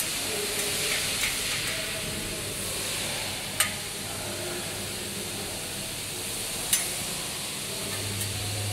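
A hex key clicks sharply against the steel bolts and bracket of a bottle guide twice, about three seconds apart, over a steady hiss and low hum.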